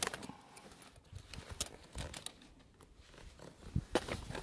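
Scattered small metallic clicks and scrapes of steel fence wire against slip-joint pliers as a twisted stay wire is unwound and worked off the end of a strand, with the sharpest click at the very start.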